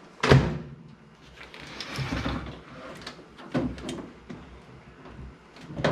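A countertop microwave oven being handled and turned over on a work surface: a loud thump near the start, a scraping slide about two seconds in, then a few lighter knocks as its metal cabinet is set down.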